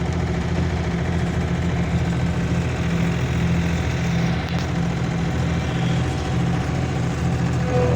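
Diesel engine of a compact earthmoving machine running at a steady speed, an even low hum with no revving.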